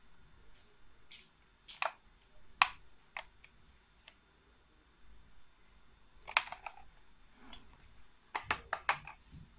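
Scattered sharp clicks and taps, as of small hard objects being handled. Single clicks come a few seconds apart, then a quick run of about six near the end.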